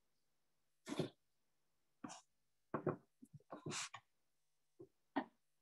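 A handful of short, irregular bumps and rustles close to the microphone, with a longer scrape a little past the middle, as a laptop and its webcam are handled and adjusted.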